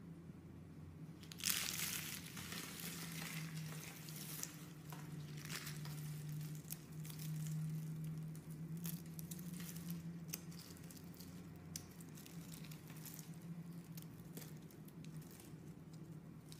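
Rolled curls of soap crackling and crumbling as hands crush them. It starts suddenly about a second and a half in, is loudest for the next few seconds, then goes on as a run of fine, dry crackles, with a faint low hum underneath.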